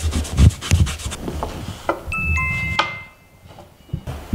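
A cloth rubbing in quick strokes over the wooden side of a cajon box, wiping off squeezed-out wood glue at a joint. About two seconds in come a few brief high ringing tones.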